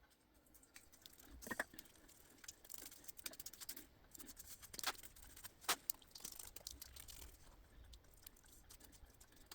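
Thick homemade rust-remover paste being daubed onto a car's rear subframe: faint, scattered sticky clicks and crackles.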